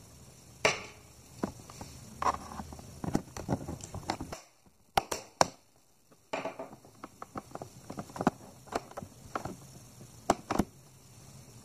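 Irregular plastic clicks and knocks, with a few sharper snaps, from a tight access cover on the underside of an Acer Nitro 5 laptop being worked free of its plastic retaining clips.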